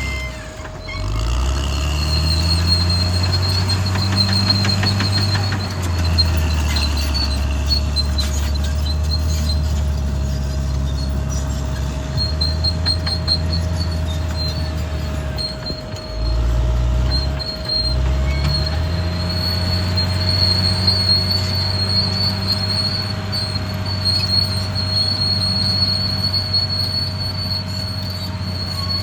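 Caterpillar D6R XL crawler bulldozer's diesel engine working under load, its pitch dropping and then climbing back about a second in and again around 16 to 18 seconds. A high squeal from the steel tracks comes and goes over it.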